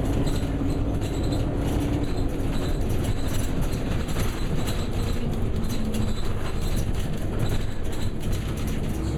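Ride noise inside a moving vehicle: a steady rumble with a low motor hum and constant small rattles, the hum dropping slightly in pitch about six seconds in.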